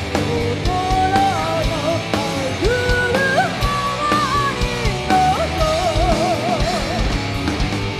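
Heavy metal band playing live: a female vocalist singing over electric guitars, bass and a drum kit, with one held note wavering in vibrato about two thirds of the way in.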